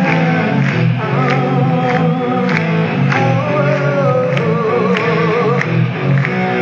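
Live hard rock band playing at full volume with a male lead vocal over electric guitars and a steady beat that hits about every 0.6 seconds. The sound is thin, with no deep bass.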